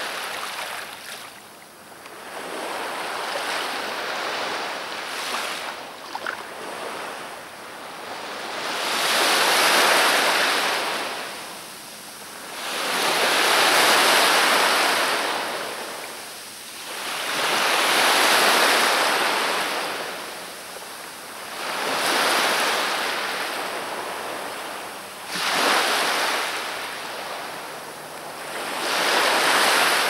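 Black Sea surf: waves breaking on the shore, each swell of rushing hiss rising and falling away about every four seconds.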